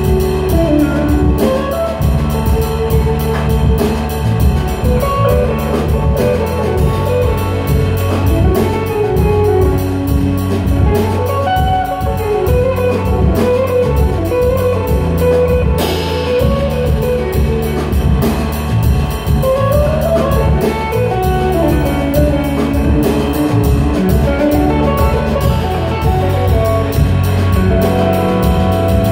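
Live kirtan music: harmonium chords and an electric bass guitar, with percussion keeping a steady beat.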